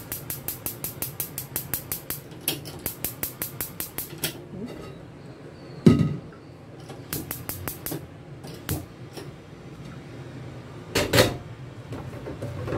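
Rapid, evenly spaced clicking, about six clicks a second, typical of a gas stove's electric igniter sparking, in a run of about four seconds and again briefly a few seconds later. A single loud knock about six seconds in and a short clatter near the end come from the non-stick wok being handled and set on the burner.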